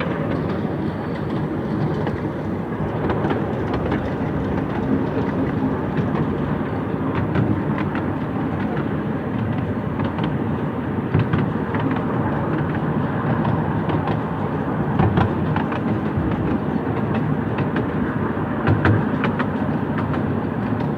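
Miniature railway train running along the track, heard from a riding car: a steady rumble of wheels on rails with scattered clicks and knocks over the rail joints.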